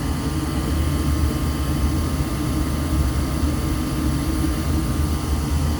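Natural gas furnace firing: the lit burners and furnace running with a steady low rumble. The circulating blower has been disconnected for a high-limit test, so its airflow is not part of the sound.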